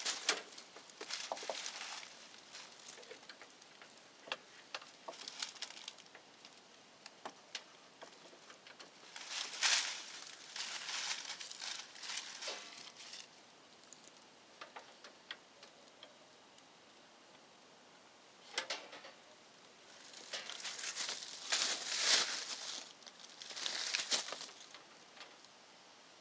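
Intermittent rustling and handling noise with scattered small clicks and taps, in two longer stretches of rustling about a third of the way in and again near the end.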